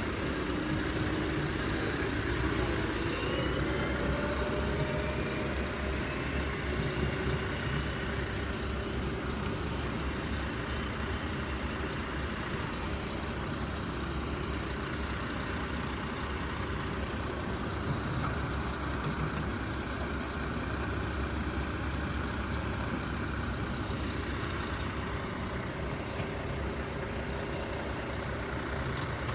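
Heavy vehicle engine running steadily, its pitch rising over the first few seconds.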